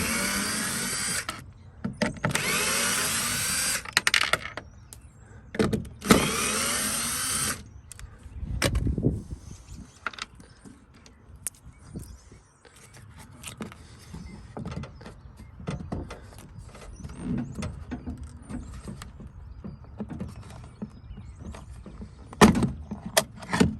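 Cordless driver spinning out the screws that hold a Dodge Caravan's window regulator motor, in three whirring bursts over the first eight seconds. Then clicks, clunks and rattles of the loosened regulator being worked inside the door, with a few sharp knocks near the end.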